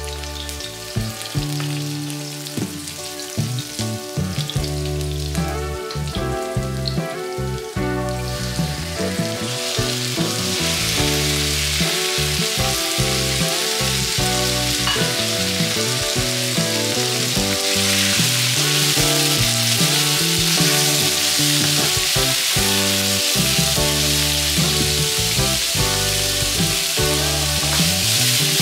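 Garlic, ginger, chili and sliced raw beef stir-frying in a hot oiled wok: a light sizzle at first that grows much louder about eight seconds in, louder again later, with background music throughout.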